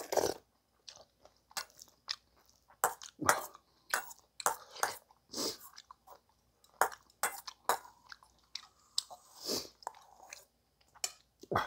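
Close-up eating sounds: a man chewing mouthfuls, with a metal spoon clinking and scraping against a stainless steel bowl as he scoops food from it. The clicks and smacks come irregularly, several a second at times, with short pauses between.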